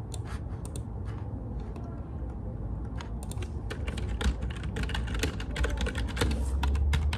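Typing on a computer keyboard: a few scattered keystrokes at first, then fast, steady typing from about halfway through.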